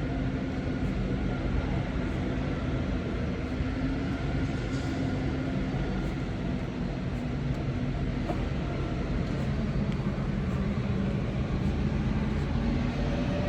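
Steady mechanical hum and low rumble of a large hall's machinery, with no change in level.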